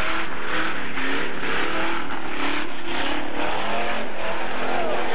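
Off-road vehicle engine revving, its pitch rising and falling several times over a steady noisy rush.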